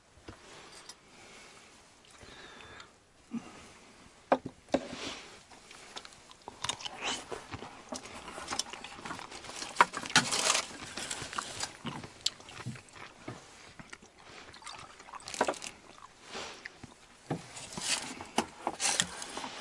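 Sounds of a meal at a table: forks and spoons clinking and scraping in metal bowls, with rustling and chewing. The sharp clicks and crackly rustles come in clusters, busiest in the middle and again near the end.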